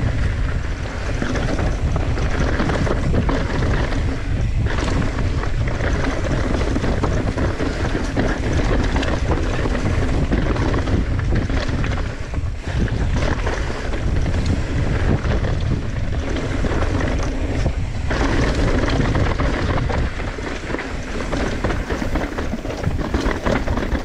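Wind rushing over an action camera's microphone at riding speed, mixed with a mountain bike's tyres rolling and rattling over a dry dirt-and-rock trail. The noise is steady and loud, easing briefly about halfway and again near the end.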